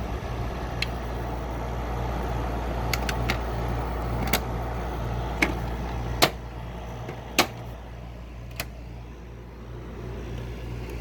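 GE AHR05LSQ1 5,100 BTU window air conditioner (made by Haier) running with its compressor and fan on: a steady low hum under a rush of air. A few sharp clicks come through it, the loudest about six and seven seconds in.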